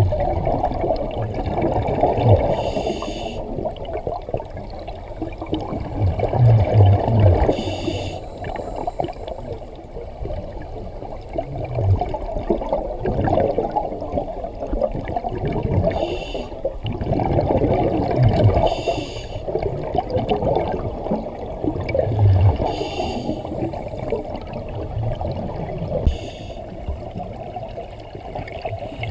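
Underwater scuba breathing heard through a camera housing: a steady muffled rumble, broken about six times by bursts of a diver's exhaled bubbles from a scuba regulator.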